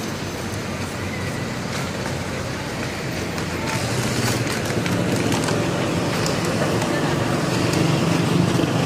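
Street traffic noise with a vehicle engine running, its low hum growing louder over the second half, and faint voices.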